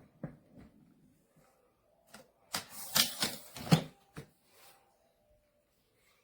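Clicking and rattling handling noise, a cluster of quick clicks about two and a half to four seconds in, with a few scattered clicks before and after.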